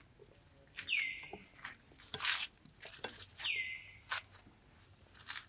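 An animal's high-pitched call, heard twice about two and a half seconds apart. Each call starts high, drops quickly and is held for about half a second. Light rustles and taps come between the calls.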